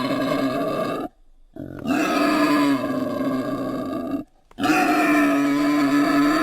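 Creature sound effects for Daeodon, a giant boar-like prehistoric entelodont: three long, even-pitched calls with short silent breaks between them.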